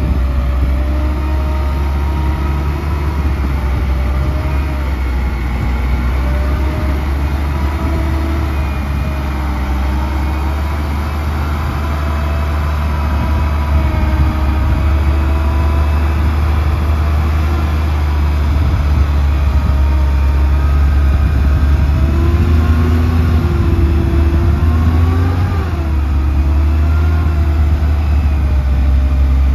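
Heavy diesel engine of construction machinery running continuously, with a strong low hum and a pitch that wavers up and down as it revs. It gets a little louder about halfway through.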